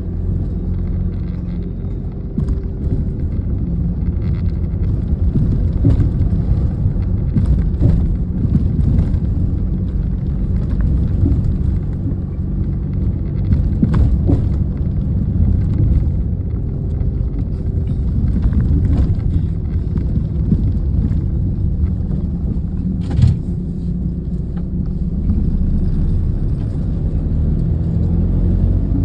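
Car driving, heard from inside the cabin: a steady low rumble of road and engine noise, with one sharper knock late on.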